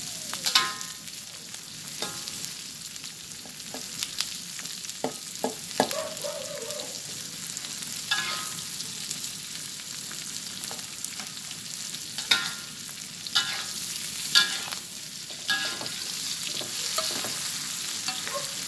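Green chillies, dried anchovies and onion sizzling in hot oil in a wok as they are stir-fried. A metal spatula scrapes and clinks against the pan every second or two, each stroke ringing briefly and louder than the steady sizzle.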